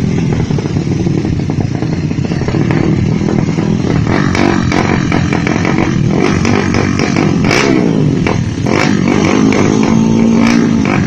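Small high-revving motorcycle engine, likely a stock Suzuki Satria FU, running loud and continuously at high revs, its pitch rising and falling through the middle, with scattered crackles.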